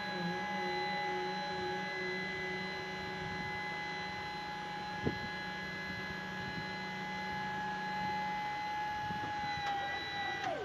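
Electric hydraulic pump of a Ford Transit tipper body running with a steady whine as the telescopic ram lifts the bed. A single click about halfway through, and near the end the whine drops in pitch and dies away as the pump stops.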